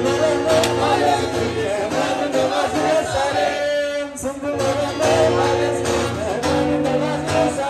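A male singer singing a slow song while strumming an acoustic guitar. The guitar chords drop out for about a second near the middle, then come back.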